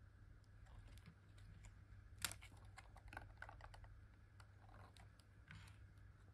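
Faint clicks and rustles of a pop-up book's stiff cardboard pages being turned and its paper pop-up pieces unfolding, with one sharper snap about two seconds in and a run of small clicks just after.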